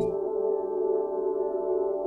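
Ambient music: one sustained chord of steady tones, held and slowly fading.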